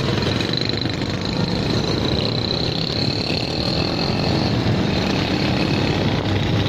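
Small motorcycle engines running as a group of motorcycles rides along a street, with wind buffeting the microphone.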